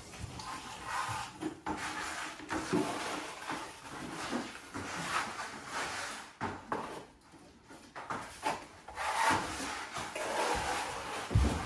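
Irregular scraping and rubbing strokes of a tool worked against a hard surface, with a sharp thump near the end.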